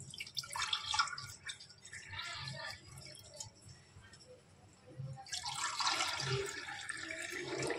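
Orange sharbat poured from a jug into drinking glasses, a splashing stream of liquid filling a glass. There is a brief pour near the start, then a longer, steadier pour from about five seconds in.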